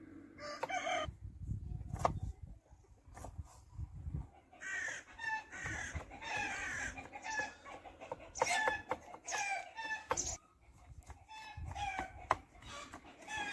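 Chickens clucking: a string of short calls, a couple a second, that starts briefly about half a second in and runs on almost without a break from about four and a half seconds.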